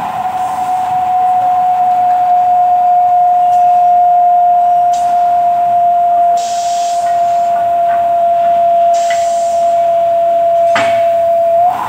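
Motor and cutter of a horizontal milling machine for T-section aluminium profiles running with a steady high whine whose pitch sinks very slightly, then jumps back up near the end just after a knock. A couple of short hissing bursts are heard along the way.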